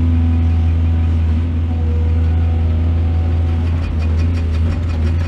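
Heavy diesel engine of a mining excavator running at a steady, even pitch. A rapid series of sharp clicks or rattles starts over the drone about three and a half seconds in.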